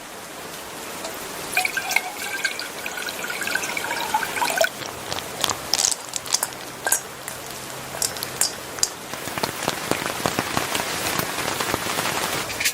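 Rain falling steadily, with many irregular drops ticking on a nearby surface. A faint pitched tone sounds for about three seconds near the start.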